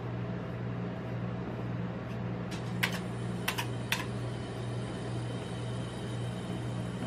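Metal spatulas scraping and smoothing ice cream across a steel rolled-ice-cream cold plate, over the steady low hum of the plate's refrigeration running. Three sharp clicks of metal on metal come a little before halfway.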